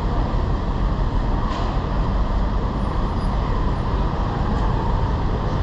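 Steady city traffic and road noise, a dense unbroken rumble heaviest at the low end.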